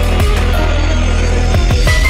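Loud electronic background music with a heavy bass line and deep kick drums that drop in pitch, a quick run of them near the end; the top end is briefly filtered out in the middle.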